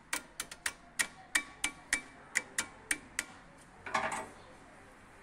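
Hand ratchet wrench clicking tooth by tooth, about three clicks a second, as a brake caliper bolt is worked, followed about four seconds in by a short metallic clatter.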